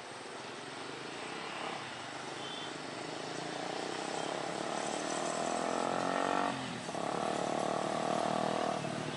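Jet airliner's engines on the runway, a rushing roar that grows steadily louder, mixed with the engine hum of road vehicles passing close by, which dips briefly about two-thirds of the way through.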